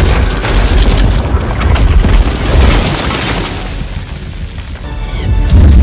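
Film sound effects of an object crashing into the desert: a sudden loud impact boom followed by a long rumbling crash, over the film's music score, with another heavy low boom building near the end.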